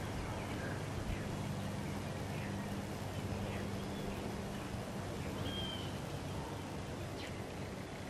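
Quiet outdoor ambience: a low steady hum under a light background hiss, with a few faint bird chirps.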